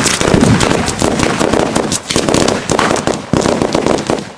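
Firecrackers of a mascletà going off in a rapid, dense string of bangs, thinning after about two seconds into separate loud reports.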